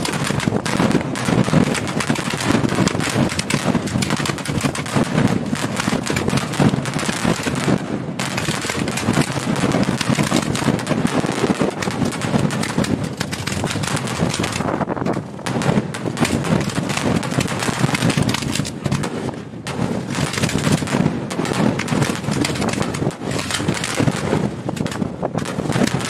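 Fireworks launching and bursting at close range in a rapid, overlapping barrage of bangs, with wind buffeting the microphone. The volley thins out briefly three times and then picks up again.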